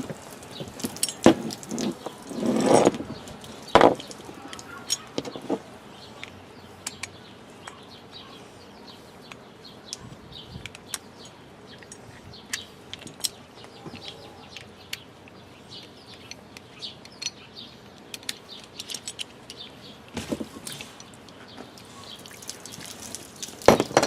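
Knocks, clicks and rustling from handling a garden hose and its connector, loudest in the first four seconds, then faint scattered short chirps, likely birds, for the rest.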